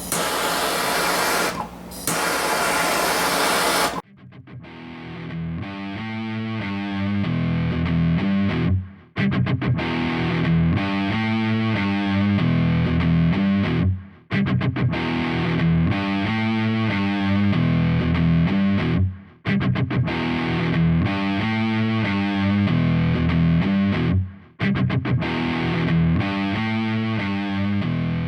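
A loud, even hiss for about four seconds that cuts off sharply, followed by background rock music with distorted electric guitar.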